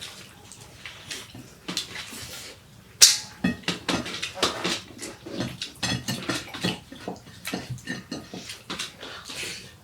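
People eating fast, with a dense, irregular run of wet chewing, smacking and slurping sounds. A sharp, loud noise comes about three seconds in.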